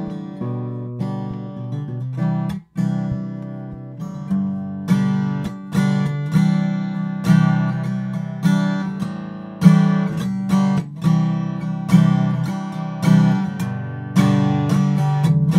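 Acoustic guitar strumming chords in a steady rhythm, each strum striking sharply and then ringing down. This is a test recording played back to compare studio microphones.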